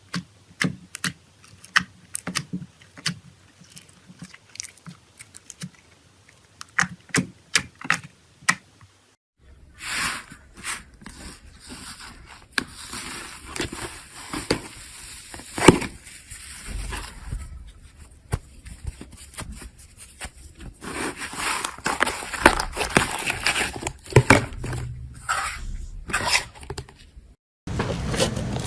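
Slime being pressed and pulled by hand, making sticky clicks and pops. For the first nine seconds or so they come one at a time. After a cut they turn into a denser, continuous crackle with louder snaps.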